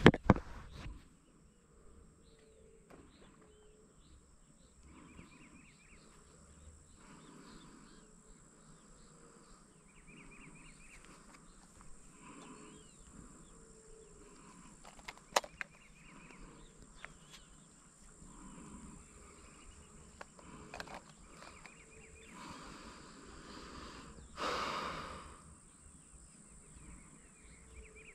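Outdoor insect chorus: a steady high-pitched buzz with small chirping animal calls repeating throughout. A sharp click comes about fifteen seconds in, and a brief louder burst of noise near the end.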